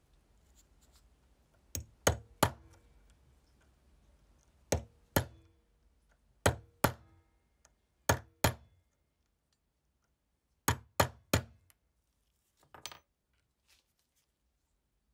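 A hammer strikes a steel punch held on a small rusted lighter part that sits on a steel anvil block. There are twelve sharp metallic blows in quick groups of two or three, each with a short ring, and a few light clicks near the end.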